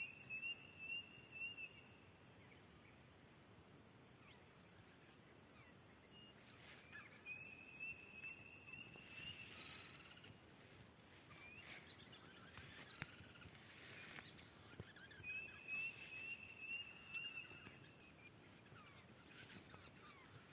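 Rural nature ambience: a steady, high insect trill throughout, with a short run of rapid pulsed call notes heard three times, about every seven or eight seconds. Scattered faint bird chirps and a few soft clicks come between them.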